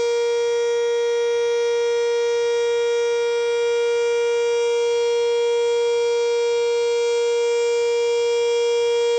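Sentry electromechanical outdoor warning siren sounding its weekly test, holding one steady, loud tone with no rise or fall in pitch. The uploader takes it for a 3V8-H.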